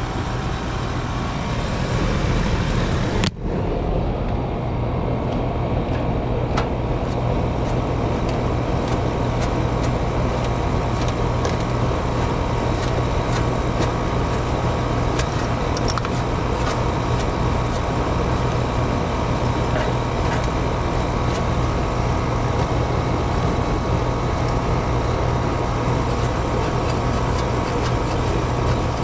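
Air-conditioning system running: a steady mechanical hum and rush of air, with a brief sharp dip about three seconds in and faint scattered ticks over it.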